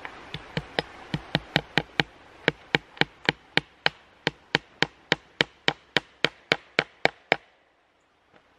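Hammer driving a fence staple across a welded-wire crossing into a wooden fence post: about two dozen quick, evenly spaced metal-on-metal taps, roughly four a second, that stop abruptly a little over seven seconds in.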